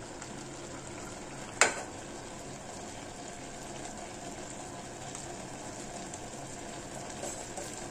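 Mixed vegetables sizzling steadily in an open aluminium pot over a gas flame, with most of their cooking water already absorbed. There is one sharp tap about one and a half seconds in, the ladle against the pot.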